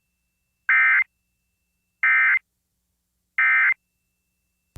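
Emergency Alert System end-of-message signal: three short, identical bursts of digital data tones (SAME "NNNN"), each about a third of a second long, about a second apart. They mark the close of the alert.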